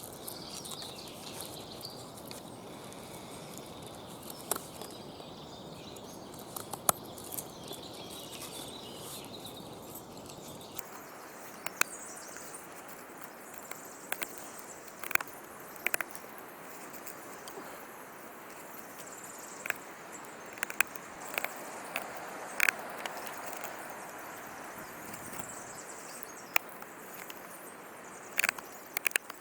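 Serrated pocket-knife blade carving a notch into hard wood: irregular sharp clicks and snicks as the blade bites and catches, over a steady outdoor background with faint birds.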